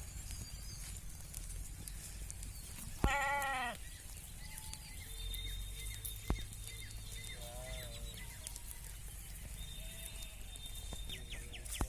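Sheep bleating: one loud, wavering bleat about three seconds in, then a fainter bleat near eight seconds and a few weak calls after it.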